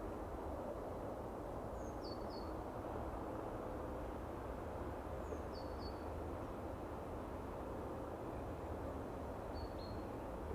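A small bird calling three times, short high notes sliding down, spaced a few seconds apart, over a steady low outdoor rumble.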